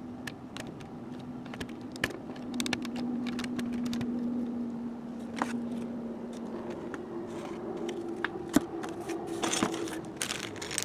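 Hands handling cardboard packaging, with scattered light clicks and rustles, then a plastic bag crinkling near the end as it is lifted out. A steady low hum runs underneath and steps up slightly in pitch about two-thirds of the way through.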